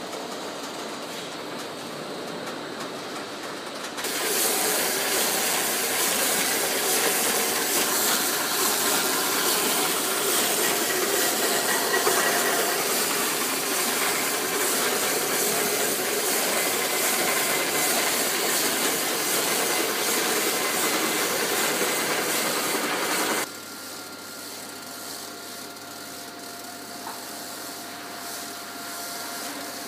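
Industrial hose-building lathe running as it spirals wire and wraps tape onto a hose. Steady machine noise is overtaken about four seconds in by a loud steady hiss, which cuts off suddenly about six seconds before the end. A quieter hum with a steady whine is left.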